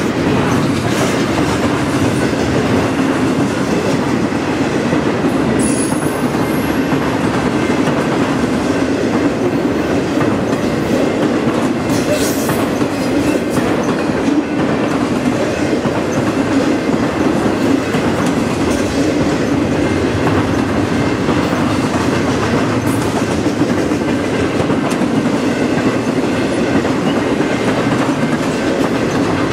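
Intermodal freight train of container well cars and trailer flat cars rolling past close by: a steady, loud rumble and rattle of wheels on rail with a light clickety-clack. A couple of brief high-pitched squeaks come about six and twelve seconds in.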